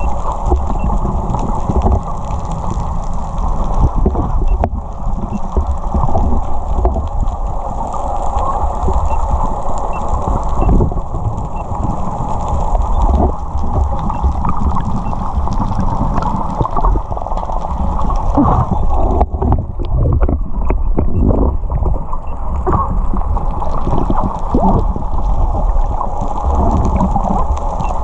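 Muffled underwater sound picked up by a camera held below the surface: a steady rush of moving water against the housing, with scattered clicks and knocks.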